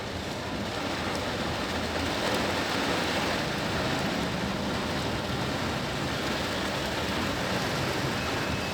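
Steady rushing noise of falling water.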